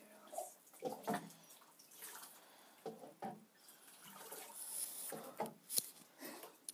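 Shallow bathwater sloshing and splashing in a bathtub as ferrets paddle about and hands scoop and pour water over them with a small cup. There are irregular splashes, the sharpest about a second in, around three seconds in, and near six seconds.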